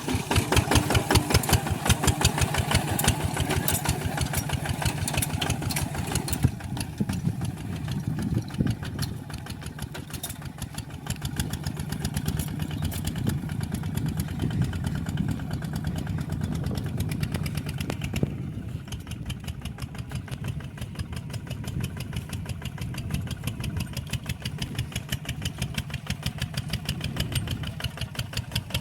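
Small engine of a walking tractor running steadily with an even, rapid firing rhythm; the sound is a little louder in the first few seconds and turns duller about two thirds of the way through.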